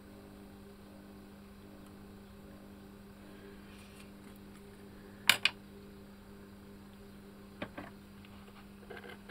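Steady low hum of the Aiwa HS-T06 Walkman's cassette mechanism running on bench power. A sharp click comes about five seconds in, and two fainter clicks come near eight seconds.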